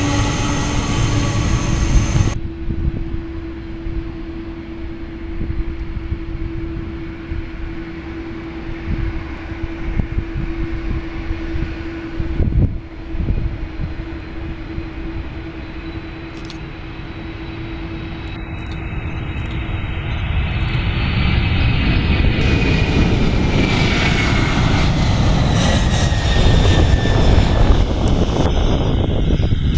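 Airliner's engines growing louder as the aircraft approaches and passes close by, rising to a loud rumble with a high whine that falls slowly in pitch. A steady low hum runs through the first two-thirds.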